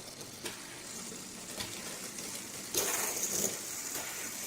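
LED fidget spinner being handled and spun: a few light clicks, then a steady whirring hiss from about three seconds in.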